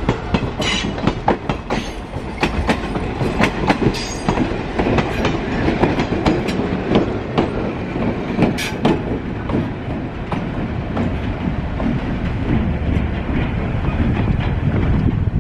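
Passenger train cars rolling past, wheels clicking rapidly over rail joints, followed by an EMD GP7 diesel locomotive with its 567 two-stroke engine rumbling by. After about nine seconds the clicking thins out into a steadier low locomotive rumble.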